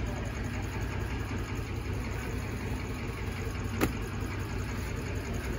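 John Deere tractor's diesel engine idling steadily, with one sharp knock about four seconds in.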